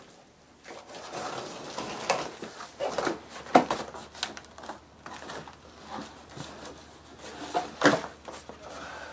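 Cardboard shipping box being opened and handled: rustling, scraping cardboard with several sharp knocks, the loudest about three and a half seconds in and again about eight seconds in.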